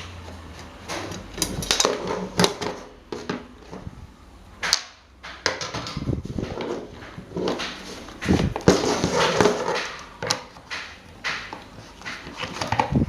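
Irregular clicks, knocks and short scrapes of hand work on metal fan parts, at an uneven pace, with a longer stretch of scraping about two-thirds of the way through.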